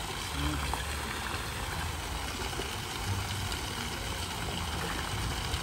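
Steady rush of water running into a swimming pool, with intermittent low rumbles underneath.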